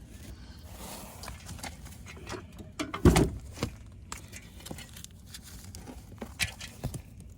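Irregular knocks and clicks, with one loud thump about three seconds in.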